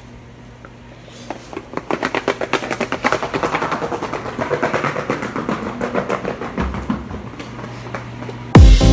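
Skateboard wheels rolling over paving joints: a rapid, regular clicking that builds up and then fades as the board passes. Dance music cuts in near the end.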